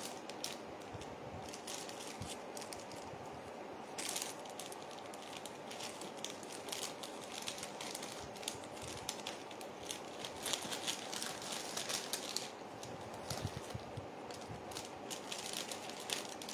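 Plastic packaging crinkling and rustling in irregular spells as a small jewellery packet is handled and opened, faint.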